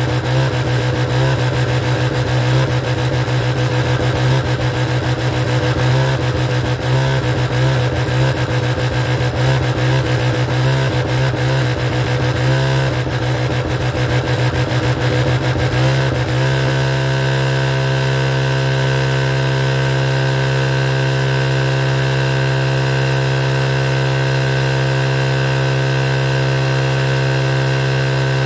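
Electric sewing machine running continuously. The sound is uneven for about the first sixteen seconds, then settles into a steady, even hum.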